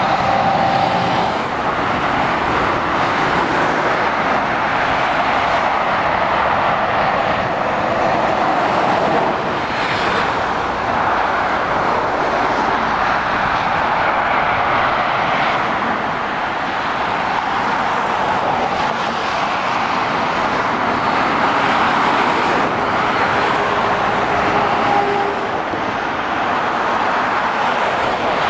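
Continuous motorway traffic passing: lorries, vans and cars, mostly steady tyre and road noise that swells and eases as vehicles go by, with engine notes briefly rising out of it.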